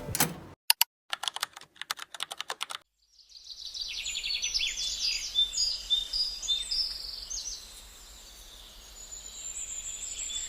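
A quick run of clicks over the first few seconds, then small birds chirping over a steady background hiss.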